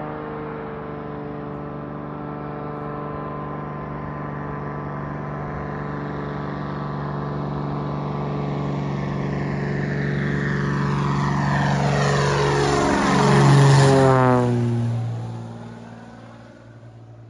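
Single-engine floatplane's propeller and engine drone, growing steadily louder as it approaches low overhead, peaking about three-quarters of the way in, then dropping sharply in pitch as it passes and fading away.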